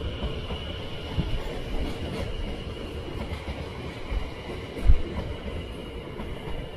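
Greater Anglia Class 720 electric multiple unit running into the platform: a steady rumble of wheels on rail with a faint steady high whine. There is a low thump about a second in and a louder one about five seconds in.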